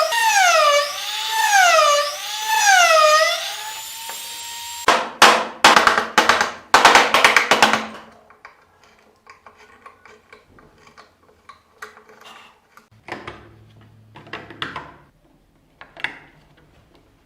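A siren-like wail rising and falling about once a second, settling into a steady tone. Then a few seconds of loud, harsh bursts like a power tool running in short spurts, and after that light, scattered taps and clicks.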